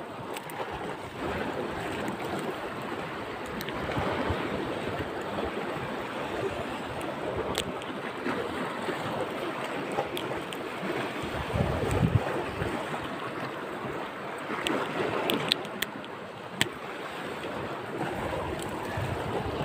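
Sea waves washing against rocks, with wind rumbling on the microphone, and a few sharp clicks in the second half.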